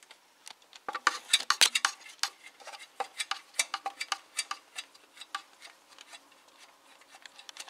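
Irregular light metal clinks and clicks of a camshaft locking tool and hand tools against engine metal as the tool is fixed in place, quickest a second or so in and thinning out after the middle.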